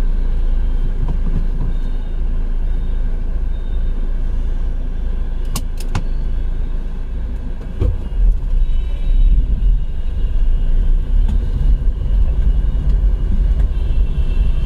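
Sedan car running at low speed, a steady low rumble of engine and road. Two sharp clicks come about five and a half seconds in, and a thump comes near eight seconds.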